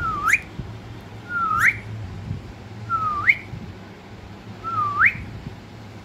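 Ringneck parakeet giving four short whistles about a second and a half apart, each a slight dip followed by a quick upward sweep.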